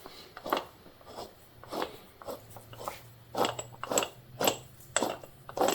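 Polaris Sportsman 400 HO front differential being turned, giving a string of short, irregular gritty crunches and grinding rasps. The noise comes from rough, rust-choked internals: rusty, dirty rollers that no longer roll.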